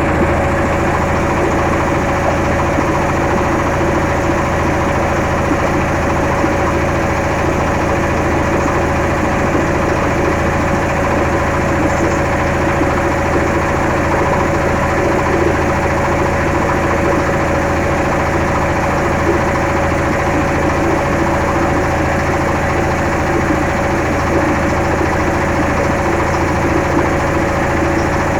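An engine running steadily at an even speed, a constant hum with one strong steady tone over it.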